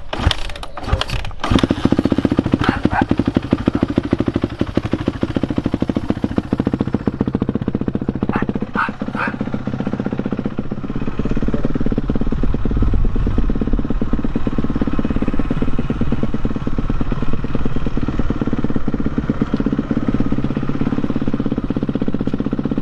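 Motocross motorcycle engine running steadily at a fast idle, loud and close.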